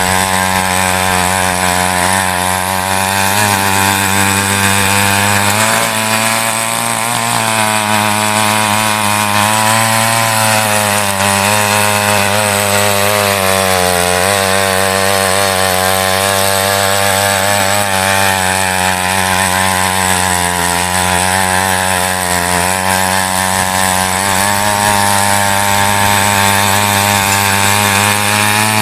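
Small petrol mini weeder (mini tiller) engine running hard under load as its tines dig through loose soil. The steady, loud engine note dips and recovers slightly now and then as the load changes.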